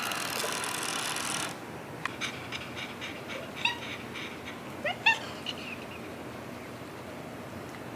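Brother P-touch label maker printing a label, its motor whirring with a steady tone that stops about a second and a half in, followed by a couple of sharp clicks. Then a cat gives a few short, rising meows between about three and a half and five seconds in.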